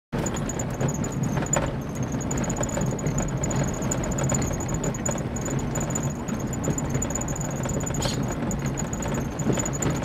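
A motor vehicle's engine running steadily, a low rumble.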